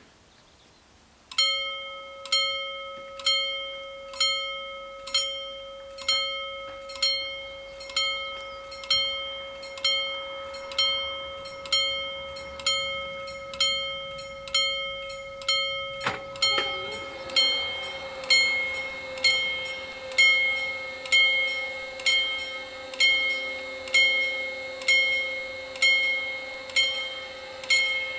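Level-crossing warning bells starting about a second and a half in, ringing about once a second with a held tone between strikes. About halfway through, a knock and a low steady hum join the bells as the barrier arms begin to lower.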